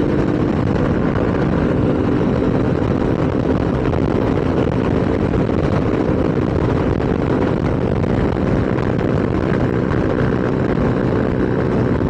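Motorcycle engine running steadily at cruising speed, with a constant rush of wind noise over the microphone.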